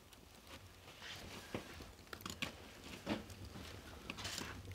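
Paper and kindling catching fire in a small wood stove: faint, irregular crackles and snaps that grow busier as the fire takes hold.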